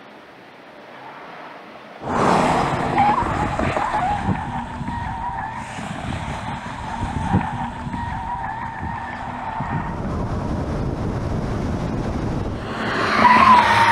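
Tyres of the electric Porsche Macan squealing under hard cornering, over tyre and wind noise. The squeal starts suddenly about two seconds in, after a soft hiss, and rises to its loudest near the end.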